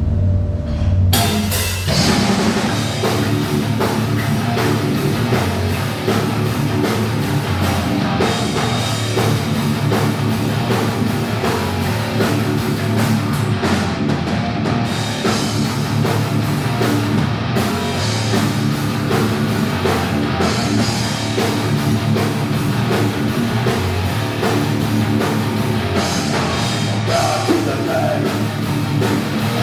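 A thrash metal band playing loud and fast: distorted electric guitars, bass and drum kit. A low held note opens it, and the full band comes in about two seconds in.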